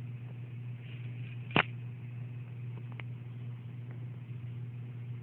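A steady low hum, with one sharp click about one and a half seconds in and two fainter clicks later.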